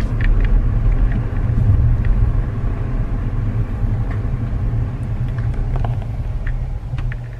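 Steady low rumble of a car on the move, engine and road noise heard from inside the cabin, with a few faint clicks near the end.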